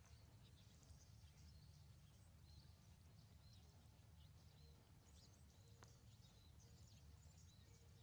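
Near silence: many short, faint high-pitched chirping calls over a low steady rumble.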